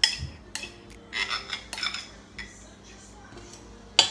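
Spatula knocking and scraping against a stand mixer's stainless steel bowl and wire whisk while sticky buttercream is scraped down. There is a sharp knock at the start, another about half a second in, a run of quick clinks and scrapes in the middle, and one more knock near the end.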